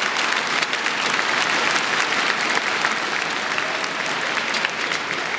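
Arena crowd applauding a finished rally with dense, steady clapping that eases slightly near the end.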